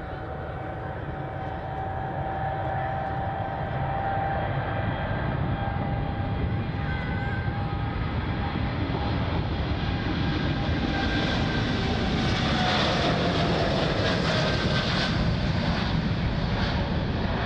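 Jet airliner's turbofan engines at takeoff thrust, growing steadily louder as the plane comes past. A steady whine rides over the rumble and falls in pitch about twelve seconds in as the aircraft goes by.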